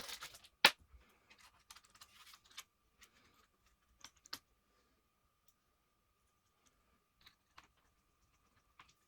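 Scattered clicks and taps from handling a laptop, the loudest a sharp click just under a second in, with sparser clicks later, over a faint steady high tone.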